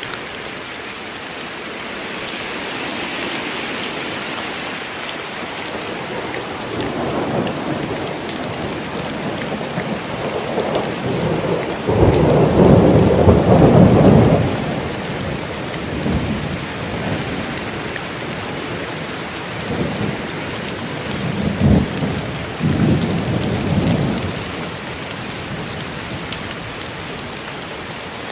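Steady rain falling in a forest, with rolling thunder. A long, loud rumble starts suddenly about twelve seconds in, and a sharper clap and more rumbling follow a little past twenty seconds.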